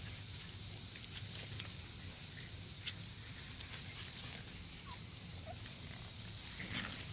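Boston terrier puppies scuffling on grass, with a couple of faint short squeaks about five seconds in, over a steady low hum.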